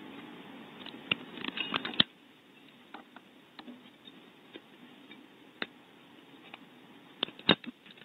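Irregular clicks and knocks with rustling, picked up by the microphone in the empty nest cavity: a busy patch of rustling and quick clicks that stops suddenly about two seconds in, then scattered single clicks and a tight cluster of louder knocks near the end.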